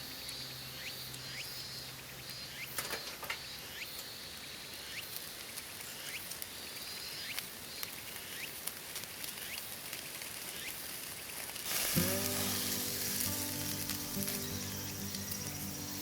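A steady hiss with faint short chirps, joined by background music about twelve seconds in.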